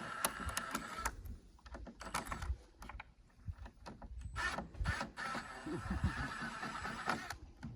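Intermittent metallic clicks, knocks and rattles with two longer scraping stretches, as a chainsaw mill's bar and chain are worked free of a log where the chain struck a buried screw. The saw is not running.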